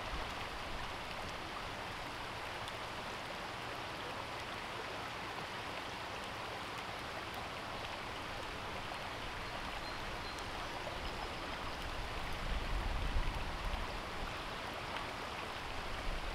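Shallow rocky stream running over stones, a steady even rush of water. A low rumble comes in about twelve seconds in and again near the end.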